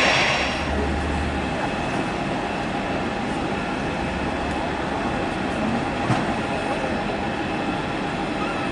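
A loud jet engine noise cuts off about half a second in, giving way to a steady low rumble and hum from an Airbus A320-family airliner being pushed back by a towbarless aircraft tug.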